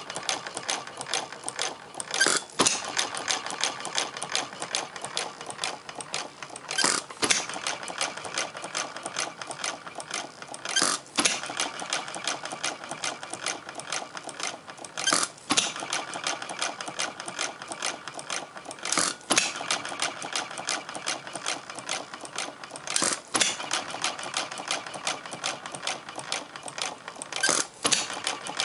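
Half-scale Olds hit-and-miss gas engine model running slow: it fires with a sharp bang about once every four seconds, and between firings it coasts on its flywheels with a steady fast ticking clatter.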